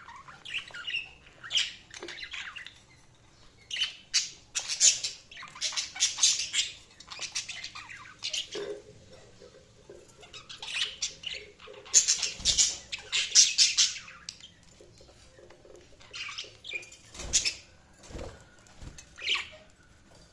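Budgerigars chirping and squawking in quick bursts of short, high calls, coming in clusters with quieter gaps between them.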